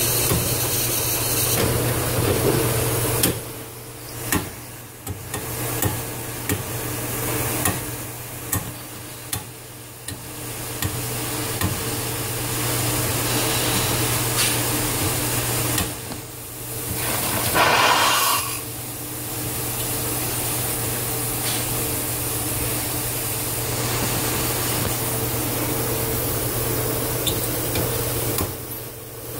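Steam and condensate hissing and spitting out of a Dunham No. 1 thermostatic steam trap's outlet, the hiss dipping briefly several times: the trap is not sealing and live steam is blowing through it.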